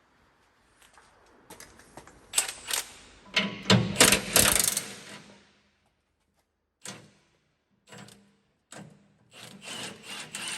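Irregular clattering, scraping and knocking of hand tools and metal parts, with the busiest stretch a couple of seconds in, then a few separate knocks and more clatter near the end.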